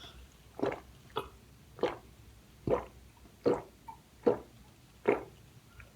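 Crunchy chips being chewed close to the microphone: seven short crunches at a steady pace, a little under one a second.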